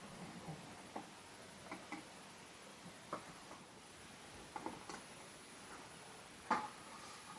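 Scattered light clicks and knocks, irregular, roughly one a second, with a louder knock about six and a half seconds in.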